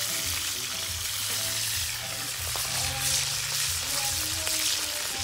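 Whole fish frying in hot oil in a pan over a wood fire, a steady sizzle.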